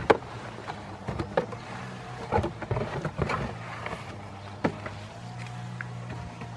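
A goat kid rooting around with its head inside a cardboard box, making irregular knocks, scrapes and rustles of cardboard against the wooden pallet, loudest about a second in and in bursts through the middle. A low steady hum runs underneath.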